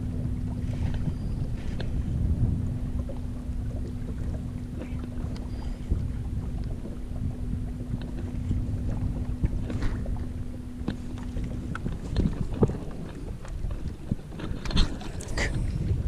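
Wind buffeting the microphone on an open fishing boat, under a steady low hum that stops about twelve seconds in. A few sharp clicks and knocks of rod and reel handling come near the end.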